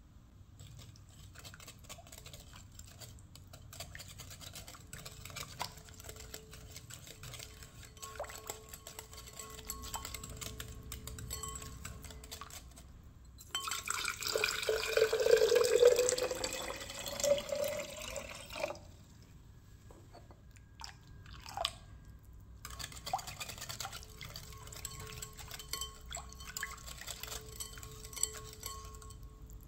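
A wire whisk ticking and scraping against a glass mixing bowl as liquid batter is beaten. In the middle, water is poured into a glass jug for about five seconds, the loudest sound, its pitch rising as the jug fills.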